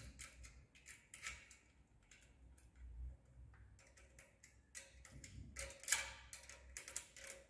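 Faint, irregular light metallic clicks of an open-end spanner working a bolt on the steel pitman-rod bracket of a sewing machine stand, with a few louder clinks in the second half.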